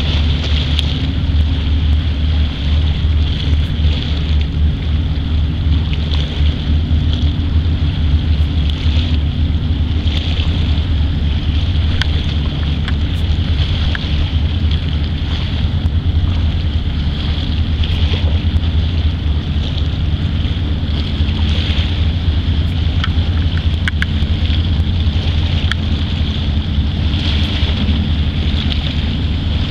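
Fishing boat's inboard diesel engine running at steady cruising speed, a deep continuous throb, with the hiss of its bow wave and wake over it.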